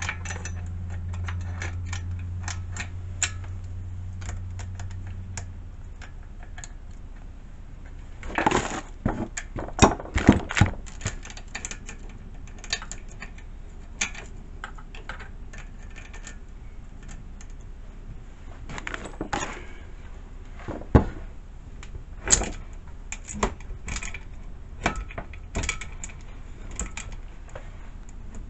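Metallic clicking and clattering of a chainsaw's bar and saw chain being handled and fitted onto the saw, in irregular bursts of clicks, loudest about a third of the way in.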